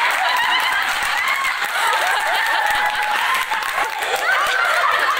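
A room of people clapping while many voices call out and cheer over one another.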